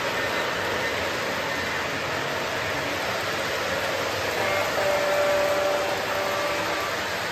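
Steady whirring rumble of O-gauge model trains running on three-rail track, with a faint held tone joining in about four and a half seconds in.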